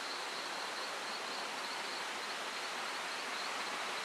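Steady rush of a waterfall's falling water, with a thin, steady high-pitched whine running over it.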